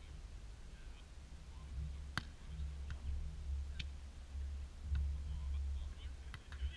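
Wind buffeting the microphone in gusts, a low rumble that swells and fades. A few sharp knocks of a volleyball being struck stand out, the loudest about two seconds in and two more over the next few seconds.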